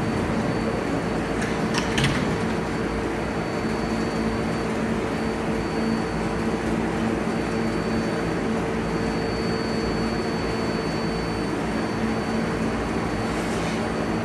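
R188 subway car of a 7 train standing in the station, its air-conditioning and onboard equipment humming steadily: a low hum with a faint high whine above it.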